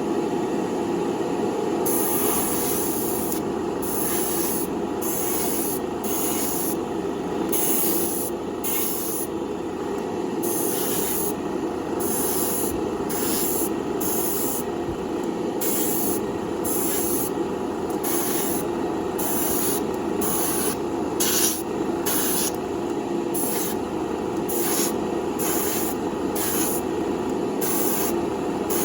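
Paint spray gun spraying a coat of Spectraflame yellow in many short bursts of hiss, starting about two seconds in, over a steady background hum.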